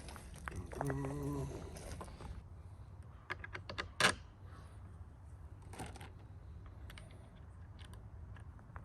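Scattered light clicks and knocks of hard parts being handled, the loudest about four seconds in, over a steady low hum. A brief low hummed sound comes about a second in.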